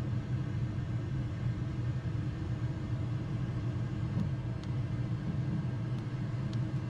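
Steady low drone of an ATR's turboprop engines and propellers at takeoff power, heard in the cockpit during the initial climb, with a few faint clicks.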